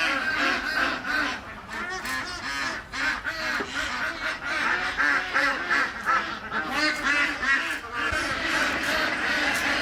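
A flock of waterfowl calling, many short overlapping calls packed together without a pause.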